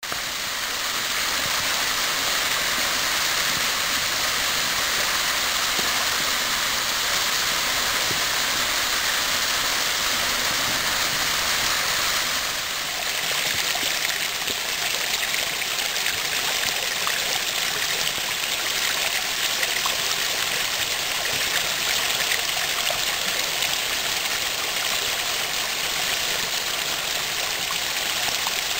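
Small mountain-stream waterfall rushing and splashing steadily over rocks. About twelve seconds in, the sound changes to a closer cascade splashing into a pool.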